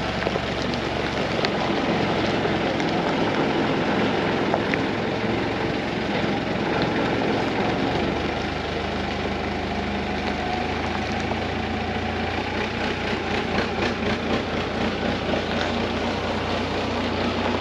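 Telehandler's diesel engine running while it drives slowly with a suspended load. Its note changes about halfway through.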